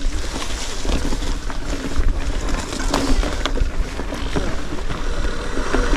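Wind buffeting the microphone on the move, a heavy uneven rumble, with scattered clicks and knocks throughout.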